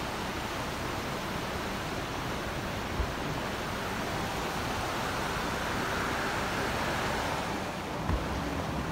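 Steady rushing of a fast mountain creek flowing over rocks, swelling a little in the middle, with two brief low thumps, one about three seconds in and one near the end.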